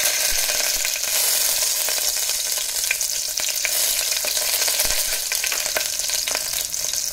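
Slit green chillies and whole spices sizzling in hot ghee and oil in a pressure cooker: a steady frying hiss with scattered sharp pops and crackles of spitting oil.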